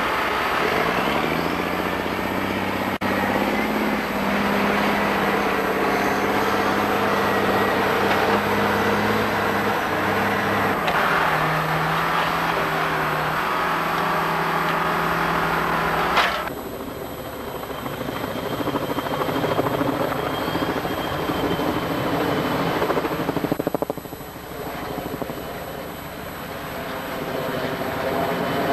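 Logging helicopter's rotor and turbine running, a loud steady drone. About sixteen seconds in it drops abruptly to a quieter drone with a thin high whine.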